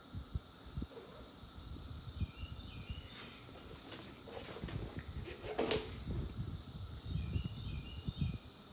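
Outdoor ambience: a steady high insect drone with a few short bird chirps, and a brief loud swish a little past the middle.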